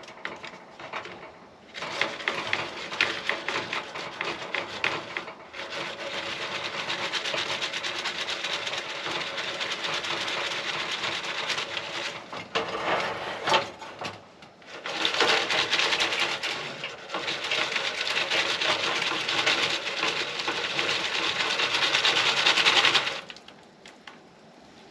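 A Jiffy Pop foil popcorn pan being shaken back and forth over the grate of a two-burner camp stove, a continuous metallic scraping rattle in two long spells with a short break between, stopping a couple of seconds before the end.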